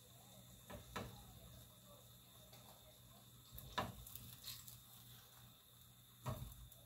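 Metal kitchen tongs clicking a few times against a frying pan as fried banana turon are lifted out. Under the clicks, the shallow oil in the pan keeps up a faint sizzle.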